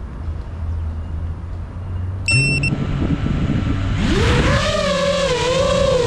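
FPV quadcopter motors: a steady low hum, then a short high beep as the motors start turning slowly. About four seconds in, the motors whine up sharply in pitch as the drone throttles up and takes off, and the whine then wavers up and down with the throttle.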